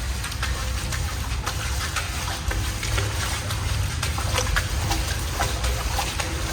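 Footsteps wading through shallow water: irregular splashing and sloshing as feet move quickly through it, over a steady low rumble.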